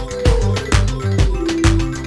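Background music with a steady beat of about two strokes a second and a held note that steps down in pitch partway through.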